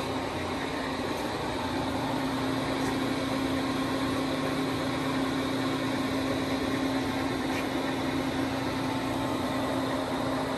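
Steady machinery hum with one constant low tone under an even wash of noise.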